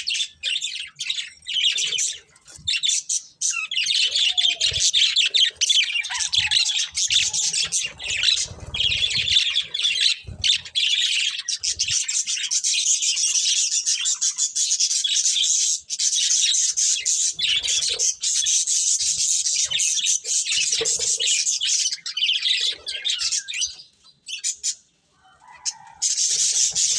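Budgerigars chattering in rapid, nearly continuous warbling chirps and squawks, broken by a short pause near the end.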